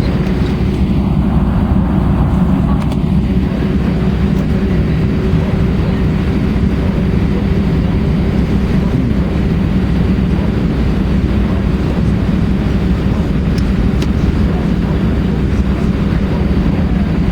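Airbus A320-232 cabin noise: a steady low rumble with a constant faint hum, holding at one level with no change in pitch.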